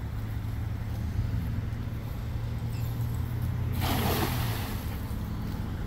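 A cast net landing flat on the water about four seconds in: a short spatter of splashing as its weighted rim hits the surface all at once, over a steady low rumble.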